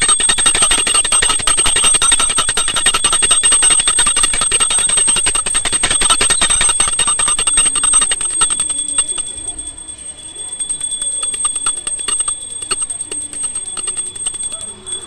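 Small brass puja hand bell rung rapidly and continuously during aarti, loud for about eight seconds, then softer and sparser.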